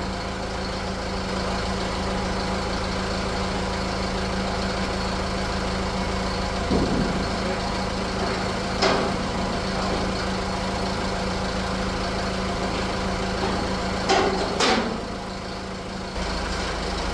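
Heavy diesel engine idling steadily, with a few sharp metallic knocks over it, two of them close together near the end.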